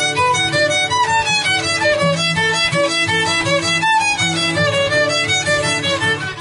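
A fiddle playing a quick melody of fast-changing notes over a strummed acoustic guitar.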